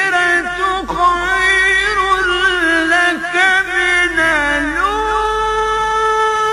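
A man's voice in melodic Quran recitation (tajweed), drawing out one long phrase with quick ornamental turns in pitch. About five seconds in it settles into a steady held note.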